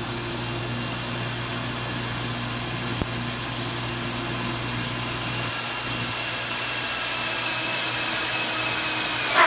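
DeWalt 20-volt cordless drill driving a 2-inch hole saw into stainless steel: a steady motor whine under load, its pitch sagging slightly as the cut goes on.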